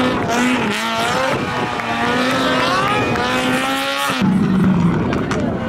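Lada rally car's engine accelerating hard away from the camera, its pitch rising and dropping as it shifts up through the gears. The engine note changes abruptly about four seconds in.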